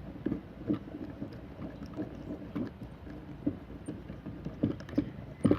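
Handwheels of a cheap drill-press XY table being cranked back and forth, the table's slides shifting with irregular small knocks and clunks, a few louder ones near the end. The slides run stiff and, in the owner's view, need cleaning and greasing.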